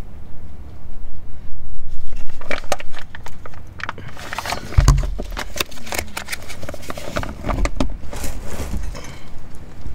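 Close crackling and scraping of a nitrile-gloved hand working against the aluminium rear differential housing, in irregular clicks and rubs, with a single low thump about five seconds in.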